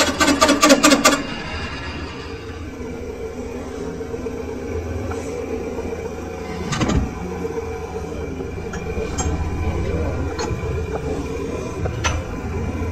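Lathe cutting tool working a thin spinning steel ring, a rapid rhythmic clatter of about five or six ringing strikes a second that stops about a second in. Then a steady machine hum with a metal clank about seven seconds in and lighter clicks as a wrench is worked on the tool post.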